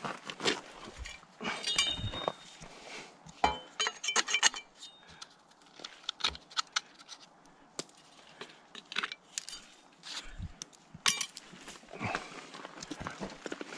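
Irregular metallic clinks and light knocks from hand tools and materials being handled, with a cluster of sharp clinks about three to four seconds in and another around eleven seconds.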